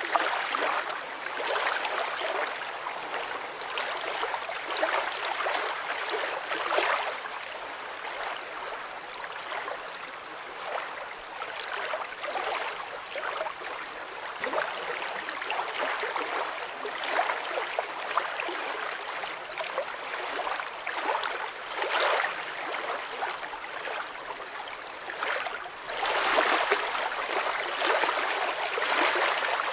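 Water flowing and gurgling in a steady rush that rises and falls in waves, louder for a few seconds near the end.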